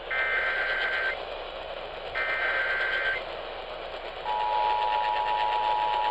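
Emergency Alert System broadcast over AM radio: two of the screeching SAME data header bursts, each about a second long, then the steady two-tone EAS attention signal starts about four seconds in, all over constant AM static hiss. It marks the start of a Severe Thunderstorm Warning alert.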